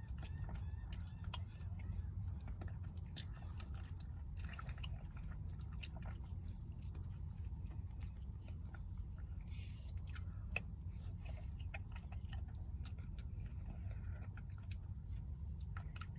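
Close-up mouth sounds of someone eating Ben & Jerry's ice cream: chewing with scattered small wet clicks and smacks over a steady low hum.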